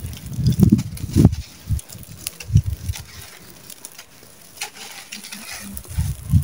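Dry clumps of red dirt crushed and crumbled in bare hands: gritty crunching with crumbs and grains pattering down. Heavier crunches come in the first second or so and again near the end, with lighter crackling in between.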